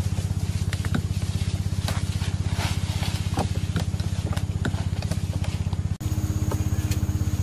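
A small motor runs steadily with a fast, even low pulsing, over scattered light clicks and rustles.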